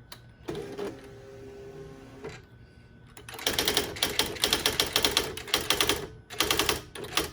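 Smith Corona Office 2000 electronic typewriter printing: a rapid, even run of sharp strikes from the print mechanism starts about three and a half seconds in, pauses briefly, and ends with a shorter second run near the end.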